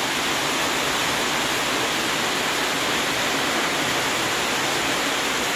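Heavy rain pouring down steadily in a thunderstorm, a dense, even hiss.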